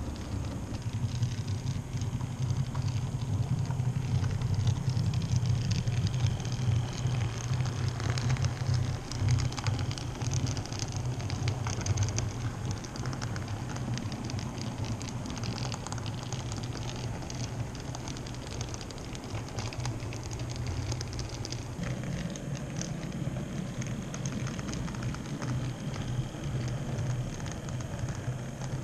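N-scale model freight train running on the layout: the wagons' small metal wheels clatter in fine, rapid ticks over the track, over a steady low hum from the locomotive's motor and gearing. The sound changes character about 22 seconds in.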